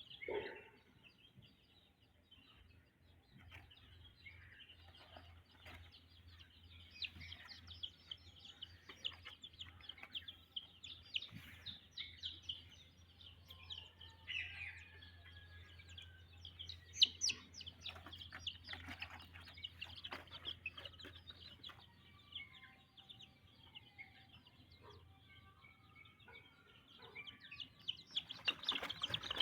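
Black Shamo Aseel gamefowl chicks peeping and cheeping in short, irregular calls, with a faint low hum underneath for much of the time and the calls growing busier near the end.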